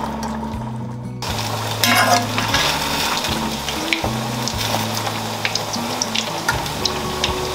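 Food crackling and sizzling in a stew pot on the stove, starting about a second in, under background music with a steady bass line.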